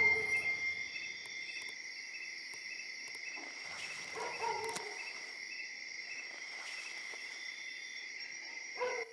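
Night insect chorus of crickets: a steady, high-pitched chirring. A brief, fainter rustling sound comes about four seconds in.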